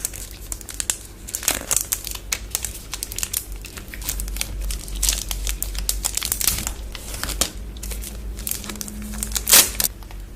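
Chocolate bar wrapper crinkling and being torn open, with dense irregular crackling and the loudest crackle about nine and a half seconds in.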